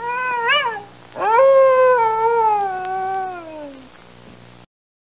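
Red fox calling: a short wavering cry, then about a second in a long cry that slowly falls in pitch. The sound cuts off suddenly near the end.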